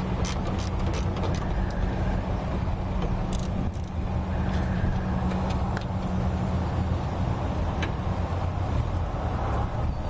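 Socket wrench ratchet clicking in quick strokes, about five a second, as a hood hinge bolt is loosened. It clicks over the first two seconds and again briefly around three and a half seconds in, over a steady low hum.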